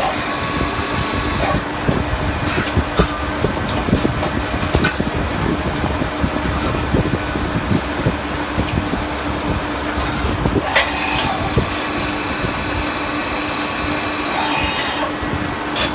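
CNC lathe with an automatic workpiece loader running its cycle: a steady machine hum with a constant tone, irregular clicks and knocks, and a high whine that comes in about eleven seconds in and again near the end.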